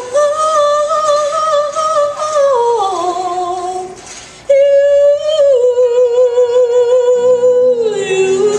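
A woman singing a slow ballad into a microphone through PA speakers: a long held note that steps down near three seconds, a short breath-break, then a loud sustained note with vibrato that steps down twice. Low accompaniment chords come in near the end.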